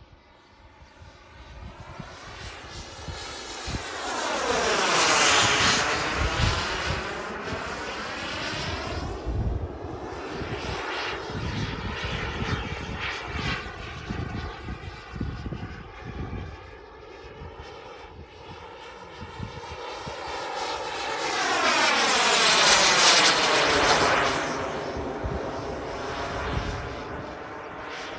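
Single Jetsmunt 250 turbine of an RC model F-22 Raptor jet making two fast passes. The turbine whooshes louder as it approaches, with a sweeping, phasing sound that falls and then rises, peaking about five seconds in and again about twenty-three seconds in, then fades between passes.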